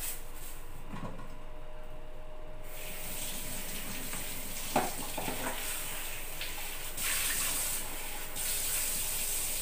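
Kitchen tap running into a stainless steel sink. It starts about a quarter of the way in and grows louder near the end as a plastic container is handled under the stream. There is one sharp knock about halfway through.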